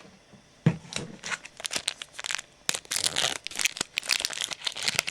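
A trading-card pack wrapper being torn open and crinkled: after a sharp click about half a second in, a long run of irregular crackles and rustles.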